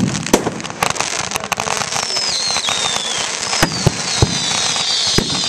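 Fireworks going off: dense crackling with repeated sharp bangs. Falling whistles start about two seconds in, and several overlapping whistles build up near the end.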